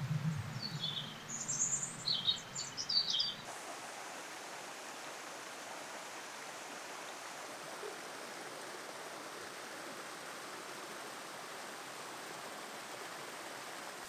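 Small birds chirping over the steady rush of a waterfall and its stream. After about three and a half seconds the chirping stops, leaving only an even rush of water.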